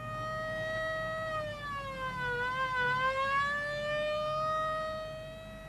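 A single long held note from the drama's musical score, one pitched tone with rich overtones that sinks slowly in pitch about halfway through, rises back, and fades near the end.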